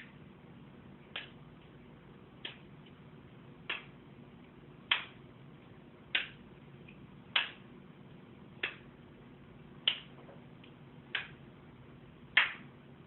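A raw whole chicken carcass being punched by hand, about eleven wet slapping hits at an even pace of a little over one a second, the last one the hardest.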